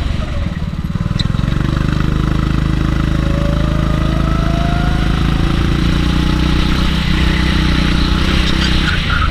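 Kart engine heard on board, running hard under the driver: it eases off just after the start, then pulls steadily with a slowly rising pitch through the middle, and eases again near the end.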